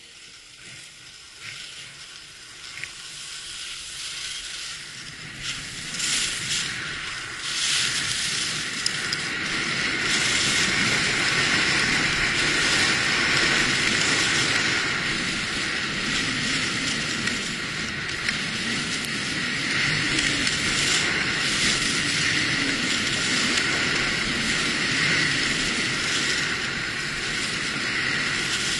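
Skis sliding and scraping over groomed piste snow. The noise is faint at first, builds over the first several seconds as the skier gathers speed downhill, then holds steady.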